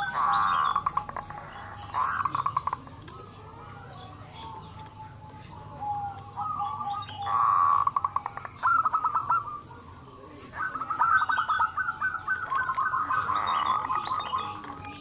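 Several zebra doves cooing over one another in bursts of fast staccato notes, with short lulls between the bursts.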